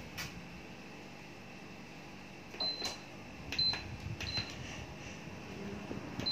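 Four short, high electronic beeps, the first a little longer, each with a click: button presses being acknowledged by an appliance's control, about a second apart with a longer gap before the last.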